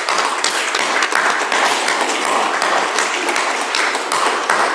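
A congregation applauding: steady clapping from many hands, with the priest's own sharper claps standing out.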